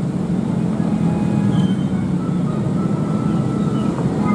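Airbus A320-200 jet engines passing overhead at a distance, a steady low rumble.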